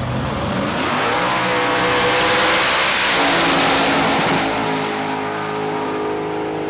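Drag race car launching from the start line at full throttle. The engine note climbs in pitch as it pulls away, then drops back about four seconds in and keeps running hard as the car goes off down the strip.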